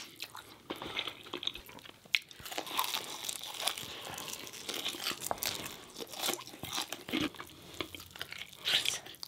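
Two people biting into and chewing fried chicken and corn on the cob, with irregular sharp crunches.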